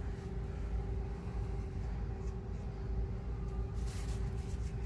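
Steady background hum: a low rumble with a constant drone tone, and a few faint light clicks about four seconds in.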